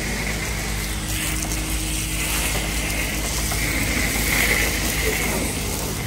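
Self-serve car wash pressure wand spraying soapy water onto a car: a steady hiss that swells about two-thirds of the way in, over a steady low mechanical hum.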